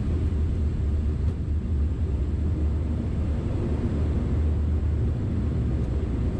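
Steady low rumble of an Airbus A340-300 flight deck in flight.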